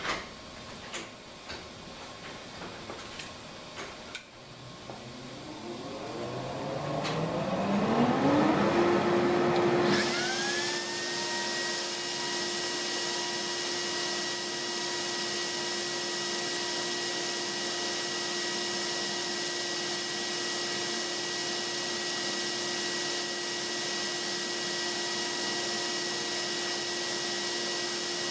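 CNC router spindle spinning up, its whine climbing in pitch for about four seconds before holding steady. About ten seconds in, the dust-collection vacuum switches on with a sudden rush of air noise, and both then run steadily.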